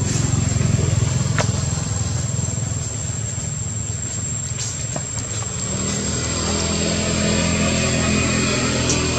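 A motor vehicle engine running steadily with a low drone. A higher engine note joins about six seconds in, and the sound grows a little louder towards the end.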